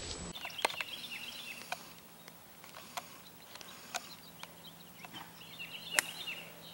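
Golf iron shot off a fairway: the club strikes ball and turf in one sharp crack about six seconds in, taking a solid divot. Faint bird chirps and a few soft clicks sound before it.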